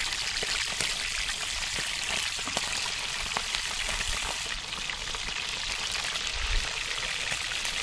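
Pieces of cod frying in oil in a pan over a wood fire: a steady sizzling hiss with many small crackles.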